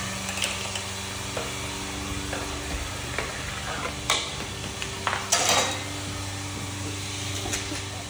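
Steady hum of electric fans running, over the light rattling, clicking and scraping of a homemade chain-reaction machine's parts: a ball rolling through a plastic tube and a toy car on plastic track. The loudest clatters come about four seconds in and again a second later.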